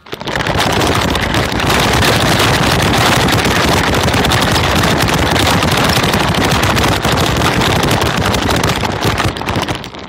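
Remote-control car running and driving close to the microphone: a loud, dense, rapid rattling noise that starts abruptly and holds steady, dropping away at the end.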